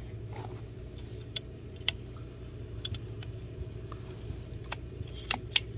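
Heavy-duty ratcheting PVC pipe cutter clicking as its handles are worked to bite through corrugated plastic pond hose: a few separate sharp clicks at uneven intervals over a steady low hum.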